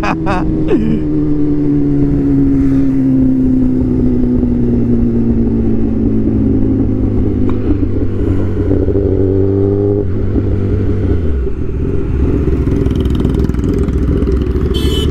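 Motorcycle engine running under way, its pitch falling slowly as the rider eases off, then dropping lower about eleven seconds in.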